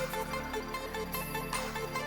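Background music: an electronic instrumental track with a steady beat.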